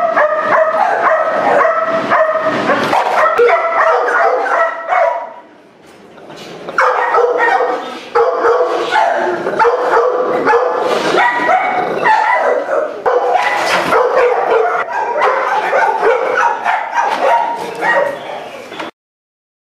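Crated dogs barking loudly in rapid, overlapping volleys. There is a short lull about five seconds in, then the barking resumes and cuts off suddenly near the end.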